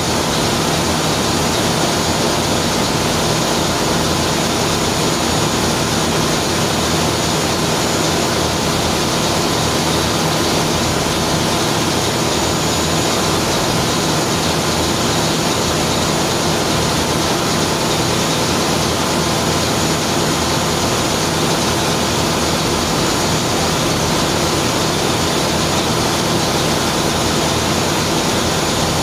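Steady, loud din of a ship's engine room: a large multi-cylinder marine diesel engine running at constant speed, with a steady hum under a continuous roar that neither rises nor falls.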